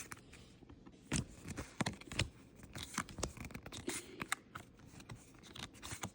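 Pokémon trading cards and a foil booster-pack wrapper being handled: scattered light scrapes, crinkles and small clicks as the cards are sorted through.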